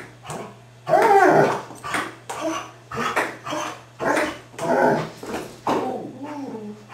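German Shepherd giving a string of short, pitched whining and yelping cries, about one or two a second, with a tennis ball held in its mouth. The loudest cry comes about a second in. The dog is worked up by the ping-pong game.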